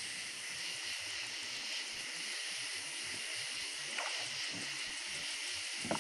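Steady high chirring of night insects, with a couple of faint knocks from the kayak, about four seconds in and again near the end.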